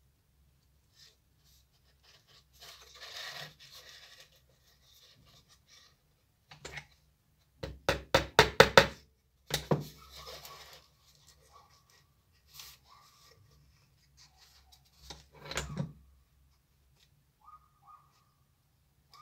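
Small hammer lightly tapping pins into thin wooden slats. A quick run of about seven sharp taps comes in just over a second midway through, with single knocks after it, and a rustle of the wooden strips being handled a few seconds in.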